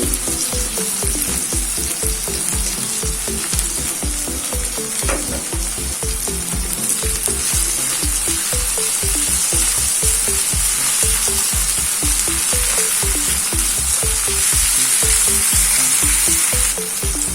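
Chopped onion, tomato and green chillies frying in hot oil in a kadai, giving a steady sizzle.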